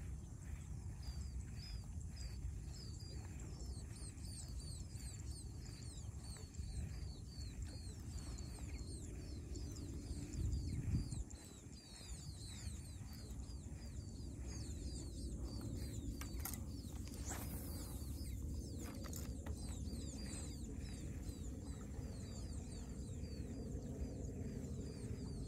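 Small birds chirping rapidly and continuously, over a low rumble of wind on the microphone that swells in a stronger gust about ten seconds in.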